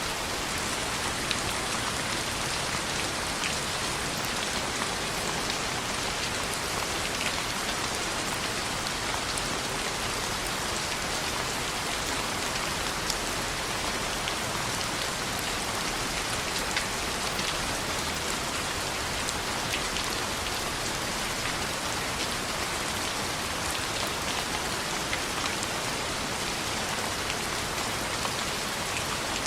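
Steady rain on a window, an even hiss of rainfall with occasional small clicks scattered through it.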